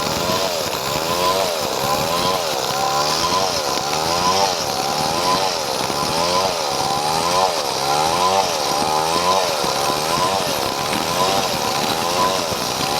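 Chainsaw running under load while cutting padauk wood, its engine pitch rising and falling about once a second.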